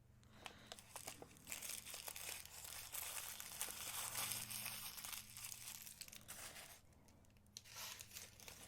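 Paper wrapping crinkling and rustling as it is unwrapped by hand, with small clicks scattered through it and a short lull about seven seconds in.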